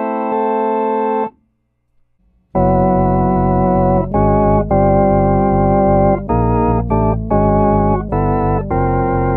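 1957 Lowrey Holiday LS vacuum-tube organ. A chord on trombone 16' and trumpet 8' stops without vibrato is released about a second in. After a short silence the organ plays chords on Hammond-like flute stops with slow, heavy vibrato over sustained pedal bass notes.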